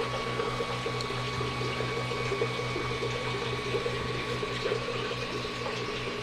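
A steady hum from a small motor or fan, with a rushing, water-like noise and a faint high whine.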